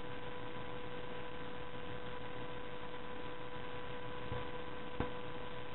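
Steady electrical hum with a constant hiss, the background noise of the recording, with a small click about five seconds in.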